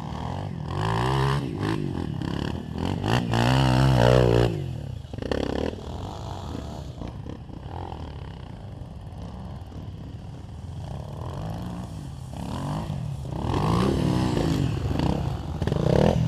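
Trail motorcycle engines revving, their pitch rising and falling, loudest a few seconds in and again near the end, with engines running at a lower level between the revs.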